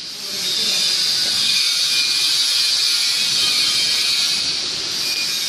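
Steady high hiss of running machinery, with faint whining tones.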